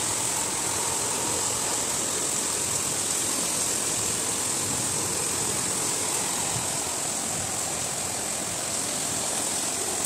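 Rain falling steadily, an even hiss that does not change.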